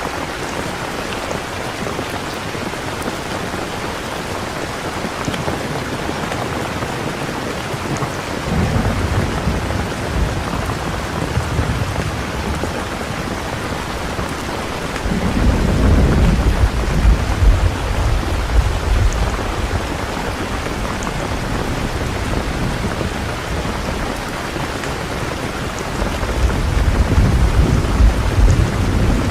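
Steady rain hissing, with three rolls of low thunder rumbling in, about nine, fifteen and twenty-six seconds in.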